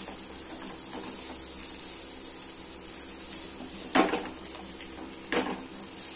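Freshly flipped onion podi dosa sizzling in oil on a tawa, a steady hiss as its second side fries. A steel spatula knocks against the pan twice, about four and five and a half seconds in.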